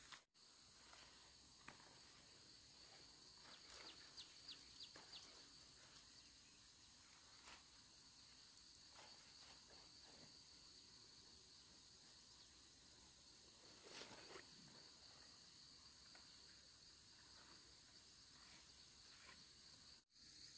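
Faint, steady chirring of insects, with scattered light rustles and clicks over it.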